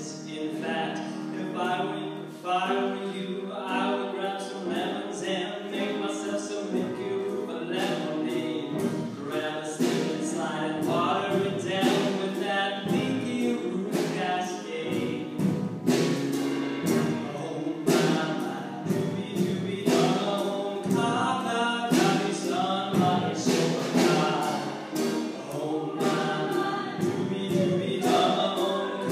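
Choir music: a group of voices singing together.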